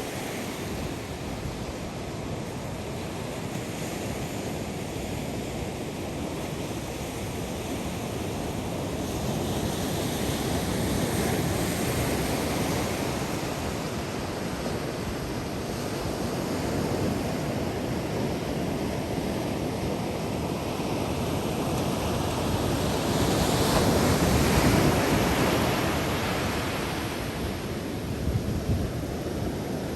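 Ocean surf breaking on a sandy beach, a steady wash that swells louder twice, most strongly a little past the middle. Wind buffets the microphone.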